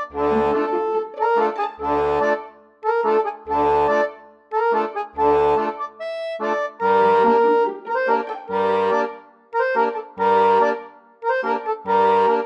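Instrumental background music: a held, reedy melody over a low bass note that comes about every second and a half.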